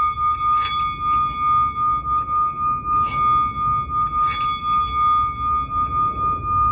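Singing bowl ringing with a steady, wavering hum, struck again three times so the tone swells briefly at each strike.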